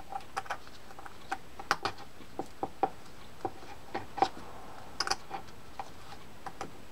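Irregular light clicks and taps of small metal drag washers against a fishing reel's main gear as gloved fingers seat the greased washers into it. The sharpest click comes about four seconds in.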